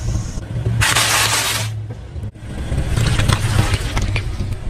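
A car's engine running low and steady as its tyre rolls over and crushes soft objects. There is a loud burst of crunching noise about a second in, a short break just after two seconds, then a crackling squish as the tyre presses through.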